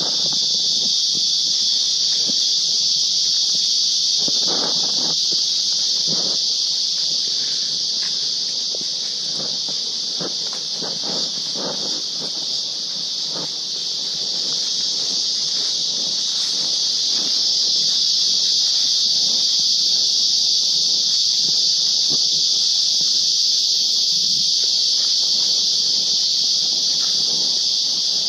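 A steady, high-pitched chorus of insects droning without a break, with footsteps on the trail underneath.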